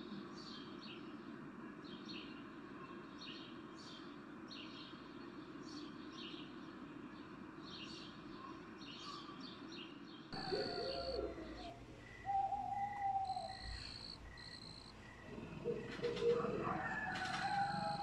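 Nature ambience: birds chirping in short, repeated high calls for about ten seconds. Then it changes abruptly to a night chorus of insects, with steady high trilling, a chirp pulsing about twice a second, and lower gliding calls.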